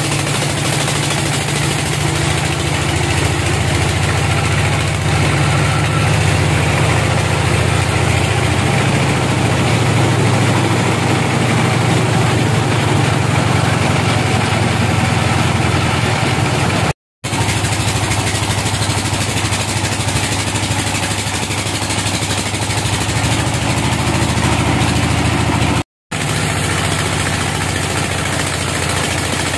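Sawmill log band saw running and sawing lengthwise through a teak log: a loud, steady machine hum with the hiss of the blade in the wood. It breaks off to silence for a moment twice.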